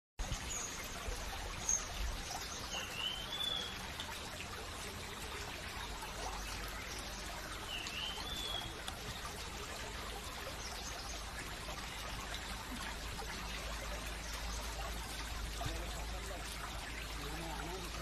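Steady trickle of running water with a bird whistling twice, each call a short note that dips and then rises, plus a few fainter high chirps.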